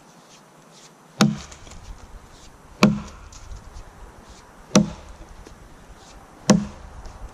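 Council Tool Boys Axe chopping into a downed log: four sharp strikes of the axe head biting the wood, about one every two seconds.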